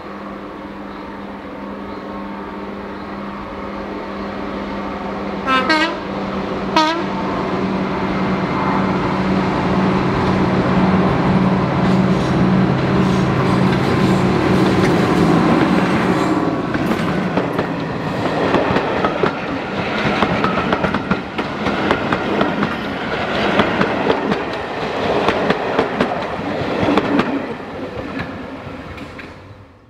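Heritage diesel locomotive approaching with its engine running, giving two short horn blasts, then passing with a rapid clatter of wheels over rail joints. The sound cuts off abruptly at the end.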